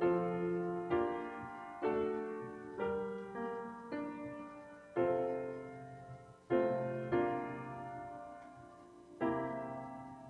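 Piano playing slow, quiet chords, each struck and left to ring and fade before the next, about one a second with a few longer gaps.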